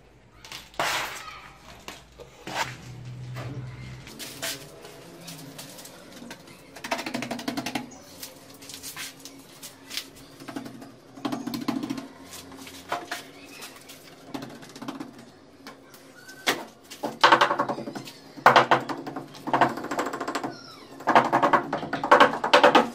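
A plastic float scraping and scooping sand-and-cement mortar, then spreading and smoothing it against the counter edge, with repeated scrapes and knocks. Several louder, squeaky strokes come in the last few seconds.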